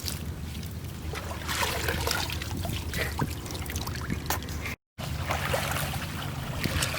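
Water splashing and trickling, with scattered small knocks and splashes over a low steady rumble, and a brief cut to silence about two-thirds of the way in.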